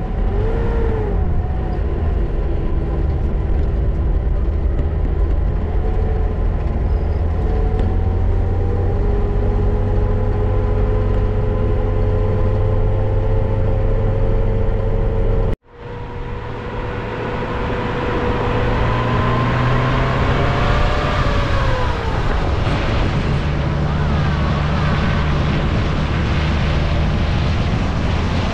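Vehicle driving on a paved road: a loud, steady low engine and road rumble with slowly gliding whine tones. It cuts out abruptly for a moment about halfway through, then resumes.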